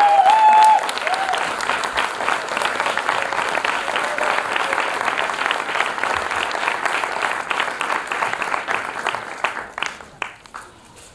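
Audience applauding for the performers, with one loud held cheer from the crowd right at the start. The applause thins out and dies away near the end.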